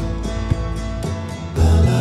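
Background music: a soft song with light regular ticks. About one and a half seconds in, a louder part with heavy bass notes begins.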